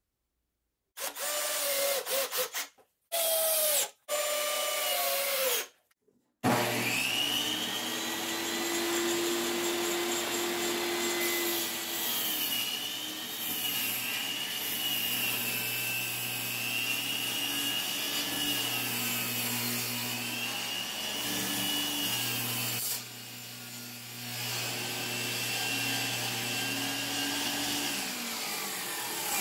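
Electric power saw cutting wood: a few short bursts that stop sharply, then from about six seconds in one long continuous cut, the motor's pitch wavering and sagging as the blade loads up. It eases briefly a little before the end.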